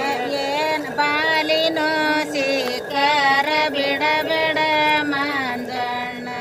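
Women singing a Kannada grinding-stone folk song (beesokallina pada) without accompaniment, the melody gliding between notes and ending on a long held note near the end.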